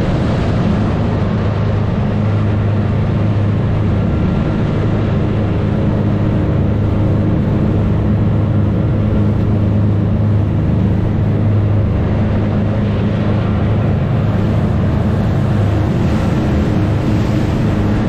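Boat engine running steadily at constant speed, a low even drone with water and wind noise over it.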